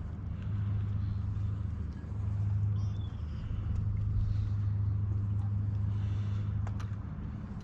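Outboard motor on a small inflatable boat running at a steady speed: a low, even drone.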